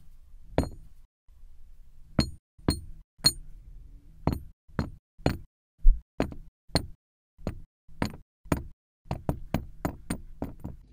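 Balls of kinetic sand dropped one at a time into a drinking glass, each landing with a short dull knock on the glass or on the balls already inside. About twenty knocks, irregularly spaced and coming quicker near the end; the first few carry a faint glassy ring.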